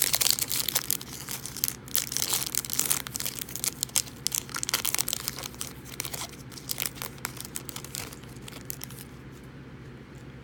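A Topps Chrome baseball card pack's foil wrapper crinkling and being torn open, a dense run of sharp crackles that thins out near the end.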